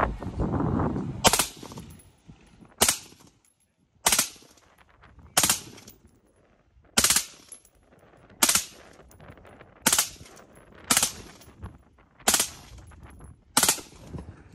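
Scoped AR-style rifle fired in slow single shots, ten of them, one about every second and a half.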